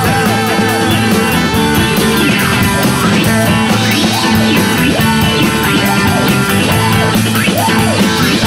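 Background rock music: an instrumental passage of a Spanish-language psychedelic rock song, led by guitar over a steady beat.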